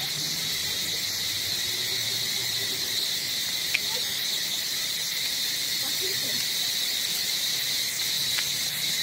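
Insects droning steadily in a high-pitched, unbroken chorus, with a single sharp tick a little under four seconds in.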